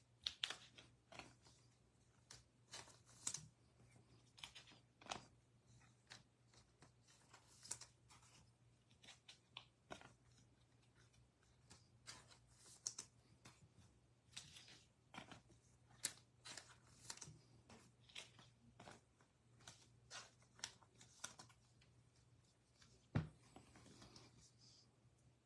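Trading cards being handled and slipped into soft plastic sleeves: scattered light plastic rustles and clicks, with one sharper knock about 23 seconds in, over a faint low hum.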